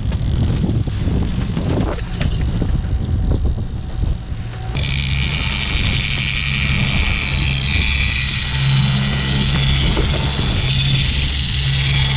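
80 hp outboard motor running a boat at speed, with water rushing past and wind buffeting the microphone. About five seconds in, the engine's steady hum comes through louder and clearer.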